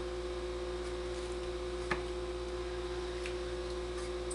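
Steady electrical hum of room tone, with one faint sharp click about two seconds in.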